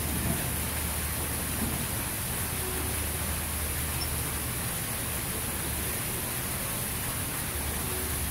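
Steady outdoor hiss with a low rumble underneath, with no distinct events.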